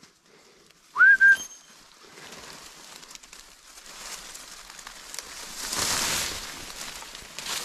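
A short, loud whistle about a second in that rises and then holds its pitch. After it comes rustling and crackling of dry reed stalks being pushed through, growing loudest around six seconds in.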